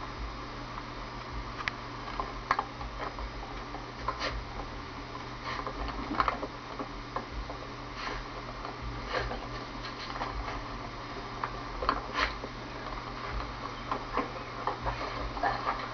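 Steady low hum with scattered faint short clicks and ticks, heard through a television's speaker during playback of an old home video.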